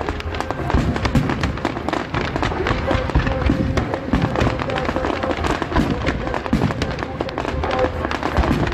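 Aerial fireworks bursting in quick succession, a dense run of sharp cracks and pops from crackling star shells, with music playing underneath.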